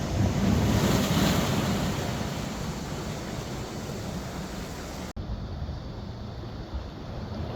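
Sea waves washing on the shore as a steady rushing noise, with a wave surging up in the first second or two and then easing off. About five seconds in, the sound cuts abruptly to a quieter stretch of outdoor noise.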